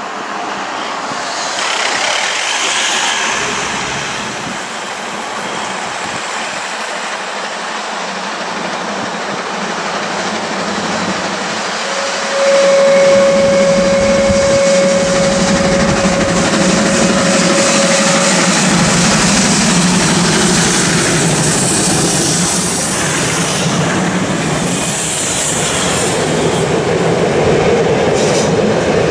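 Two SBB C 5/6 steam locomotives double-heading a passenger train, growing louder as they approach. About halfway through comes one long, steady whistle blast of about six seconds, and near the end the coaches' wheels clatter past over the rail joints.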